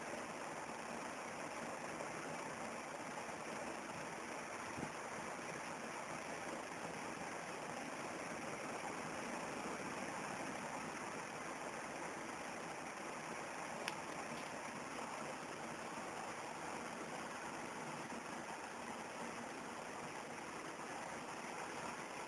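Steady, even hiss of background noise with no clear source, broken by a faint tick about five seconds in and a sharper click about fourteen seconds in.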